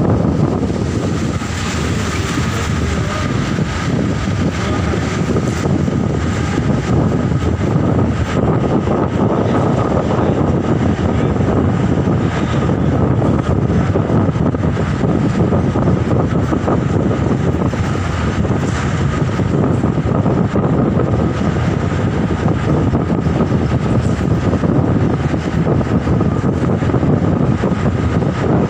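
Steady noise heard from inside a moving vehicle: a constant rumble with a faint, even high tone above it.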